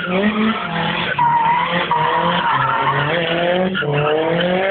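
Nissan Silvia S14 drifting: its engine revs rise and fall several times with the throttle while the rear tyres squeal in a continuous slide.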